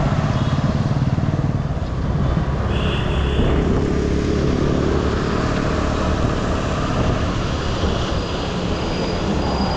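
Small commuter motorcycle's engine heard from the rider's seat as the bike pulls away and rides along, its note rising as it speeds up about three to four seconds in. A short high beep sounds about three seconds in.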